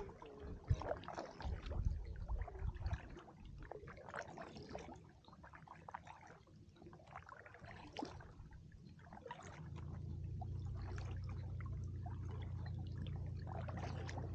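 Kayak paddle blades dipping into calm water, with drips, small splashes and trickling between strokes. About ten seconds in, a steady low hum begins and runs on under the water sounds.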